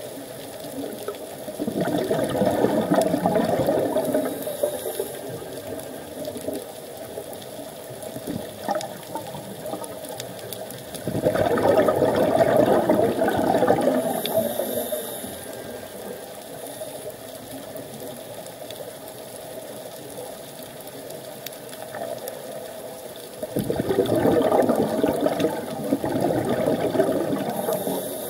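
Scuba regulator breathing underwater: three long bubbling rushes of exhaled air, roughly ten seconds apart, each followed by a brief high hiss as the next breath is drawn.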